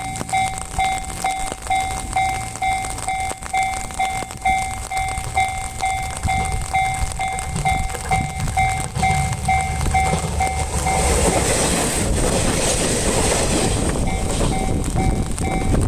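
A Japanese level crossing's warning bell dings in a steady rapid rhythm while a train rumbles over the crossing. About eleven seconds in, the train's loud rushing noise swells and covers the bell for a few seconds. The dinging is heard again near the end.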